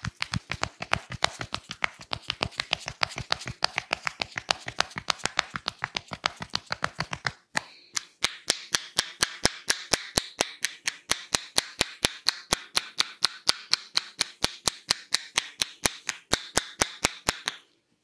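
Indian head massage percussion: hands rapidly striking the scalp in sharp, even claps. They run at about eight a second, break off briefly near the middle, resume at a slower five or so a second, and stop just before the end.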